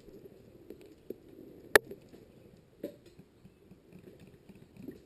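One sharp, loud snap a little under two seconds in, with two softer knocks before and after it, over faint rustling.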